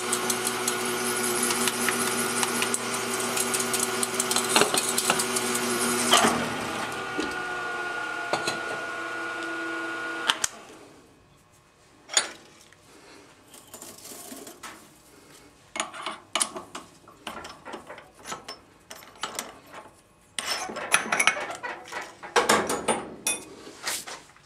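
G704 mill-drill running with a drill bit cutting into a steel plate: a steady motor tone with a bright hiss that fades about six seconds in, while the motor runs on until it stops about ten seconds in. After that come scattered clicks and a clatter of metal handling near the end.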